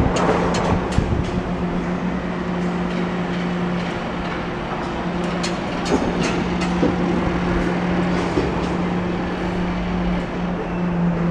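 Drive machinery of the Niederfinow ship lift running: a steady low hum over mechanical rumble, with scattered sharp clicks and knocks.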